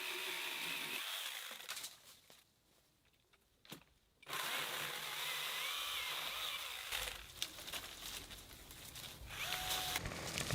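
Small cordless brushless-motor cutting tool running with a steady whine. It stops about a second in and starts again after about three seconds, its pitch briefly swelling while it runs. Lighter clicks and knocks follow near the end.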